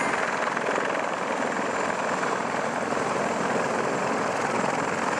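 Marine CH-53E Super Stallion heavy-lift helicopter taxiing with its rotors turning: a steady, dense rush of rotor and turbine engine noise at an even level.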